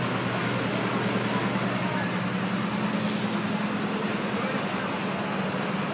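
City street traffic: a steady engine hum under an even wash of traffic noise, with scattered voices of passers-by.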